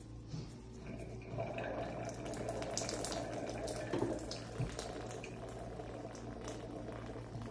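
Water gushing out of a Delta shower valve body around the cartridge puller and splashing down onto the floor. It builds up about a second in, with a few sharp clicks over it.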